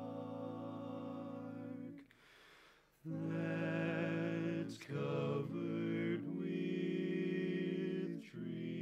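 Barbershop quartet singing a cappella in four-part harmony: a long held chord, a short break for breath about two seconds in, then a run of sustained chords that shift pitch every second or two.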